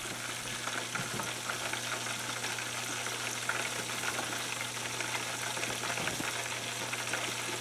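Battered chicken pieces frying in hot oil at about 261°F in an open aluminum pressure cooker: a steady crackling sizzle.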